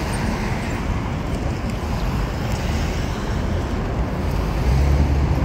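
Road traffic noise: cars going by on a nearby street, a steady rush with a deeper rumble that swells near the end.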